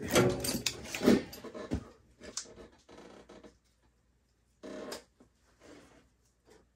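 Scattered clicks, knocks and light metal clatter of tools and parts being handled during oil furnace servicing, busiest in the first couple of seconds and then sparse.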